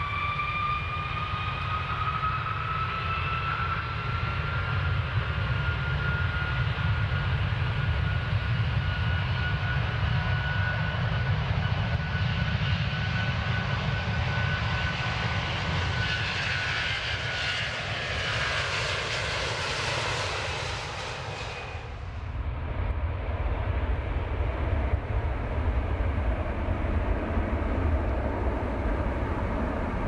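Jet airliner taking off: a high engine whine climbs in pitch over a deep steady rumble while a rushing hiss builds up. About two-thirds of the way through, the high whine and hiss cut off suddenly, leaving only the low rumble.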